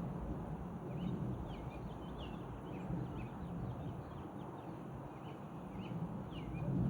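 Small birds chirping, many short high chirps several times a second, over a steady low outdoor rumble.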